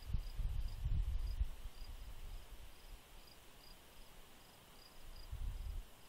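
Crickets chirping in an even rhythm, about three chirps a second, over a steady insect hum. A low rumble comes and goes in the first second and a half and again near the end.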